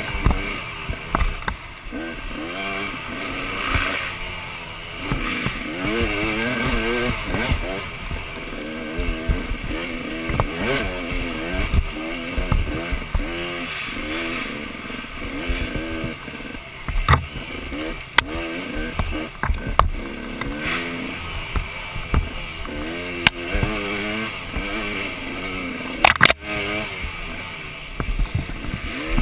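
Dirt bike engine ridden hard off-road, its revs rising and falling constantly with throttle and gear changes. Sharp knocks and rattles from the bike hitting bumps on the trail, loudest about two-thirds of the way through and again near the end.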